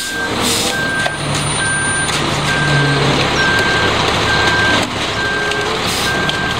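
Front-discharge concrete mixer truck running as it pours concrete down its chute, a loud steady rumbling noise, with a reversing alarm beeping about once a second.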